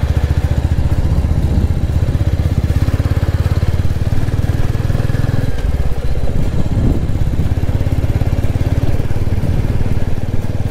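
Royal Enfield motorcycle engine running steadily on the move, its exhaust beat dense and even. A little past halfway the engine note changes briefly.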